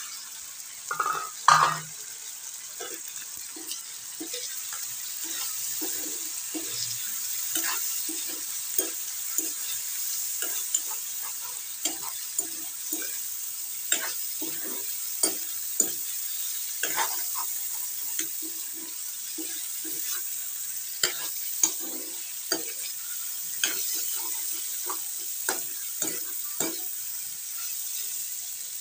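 Chicken and potato pieces sizzling in hot oil in a wok, stirred with a metal spatula that scrapes and knocks against the pan. The loudest knocks come about a second and a half in.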